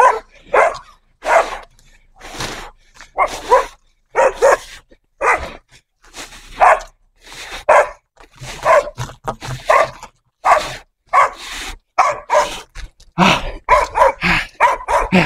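Dogs barking over and over, short barks about once a second, coming faster around nine seconds in and again near the end.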